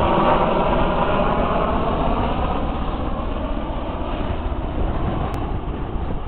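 Wind buffeting the camera microphone outdoors, a rough, uneven rumble. Over the first few seconds a droning hum made of several steady tones fades away underneath it.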